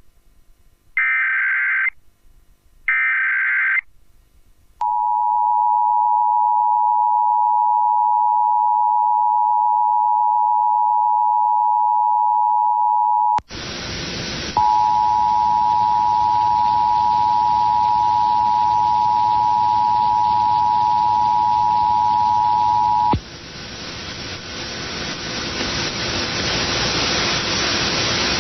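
Emergency Alert System test tones: two short screeching SAME data bursts, then the EAS two-tone attention signal held steadily for about eight seconds. The attention signal cuts off as loud static comes in, sounds again over the static for about nine seconds, and then stops, leaving hiss with a low hum.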